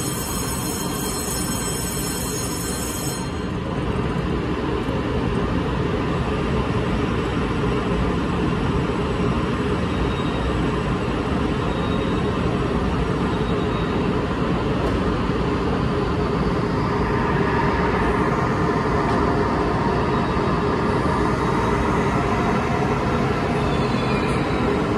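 Taiwan Railways EMU500 electric multiple unit at a platform: steady running noise while it stands, growing louder around two thirds of the way through as the train pulls out. A high electronic tone cuts off about three seconds in.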